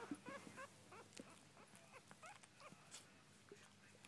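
Newborn miniature dachshund puppy, eyes still closed, whimpering in a run of short, faint, high squeaks. The squeaks come thick in the first second and thin out after.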